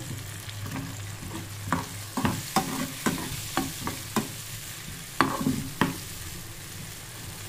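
Steel spoon stirring tamarind juice through fried chillies and curry leaves in a frying pan over a steady sizzle. From about two seconds in until about six seconds, its strokes click against the pan about twice a second.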